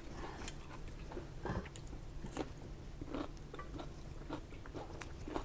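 Close-up chewing of a mouthful of raw cucumber and tomato salad: irregular wet mouth smacks and crunches, roughly one a second.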